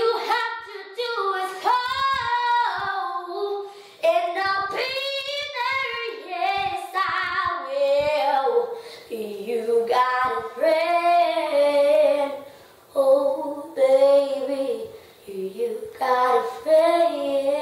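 A young girl singing without accompaniment, in sung phrases with short breaks between them.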